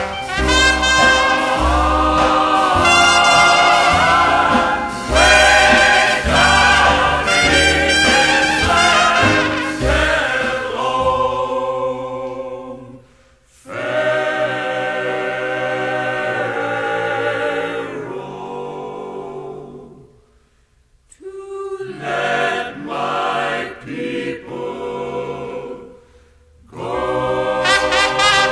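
Music: a choir with a brass section, trumpet prominent, in a gospel spiritual arrangement without transcribed words. A low beat runs under the first ten seconds, and the music drops away briefly three times.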